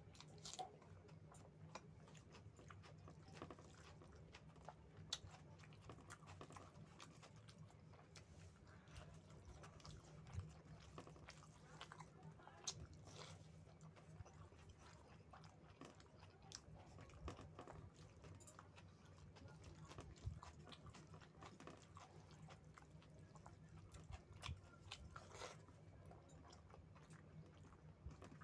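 Faint close-up chewing and mouth sounds of a person eating rice with chicken curry, with many small clicks and smacks scattered throughout, over a low steady hum.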